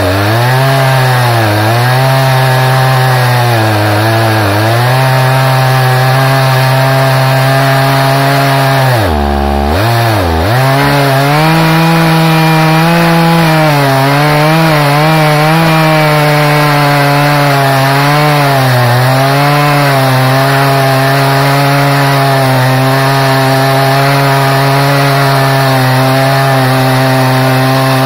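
Stihl MS880 two-stroke chainsaw with a 42-inch bar on an Alaskan mill, ripping lengthwise through an ash log at full throttle. The engine pitch sags briefly several times as the cut loads it, dips deeply twice about nine to ten seconds in, then holds steady.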